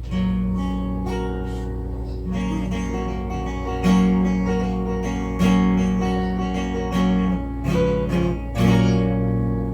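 Acoustic guitar strummed without singing, a new chord struck every second or two.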